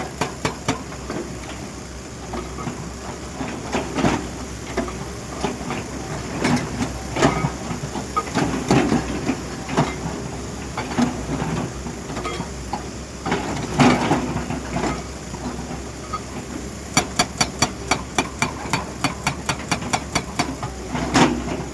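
Excavator-mounted hydraulic breaker hammer striking in rapid runs of about five blows a second over the excavator's running diesel engine. The runs come near the start and again about three quarters of the way through, with irregular heavier knocks in between.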